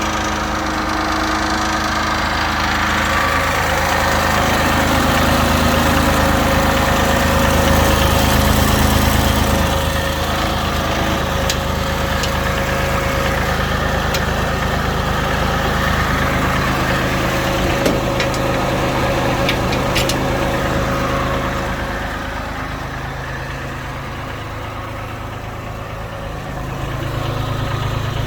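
Bobcat S70 skid steer loader's small three-cylinder diesel engine running, its speed rising and falling in steps. It settles lower about three-quarters of the way through and picks up again near the end, with a few brief sharp clicks.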